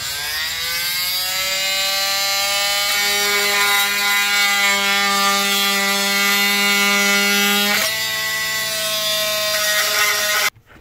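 Cordless oscillating multi-tool cutting a small tab off a plastic motorcycle part: a buzzing whine that climbs in pitch as it spins up, holds steady while cutting, and cuts off abruptly near the end.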